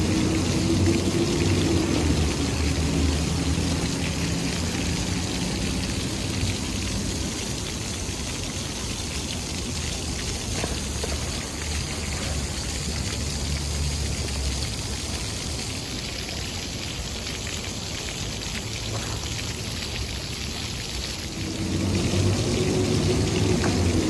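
Row of small vertical fountain jets splashing steadily into a shallow pool. A low hum sits under the water for the first few seconds and comes back near the end.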